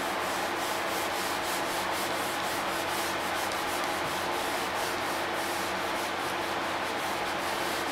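Whiteboard eraser rubbing across a whiteboard in quick back-and-forth strokes, wiping off marker writing.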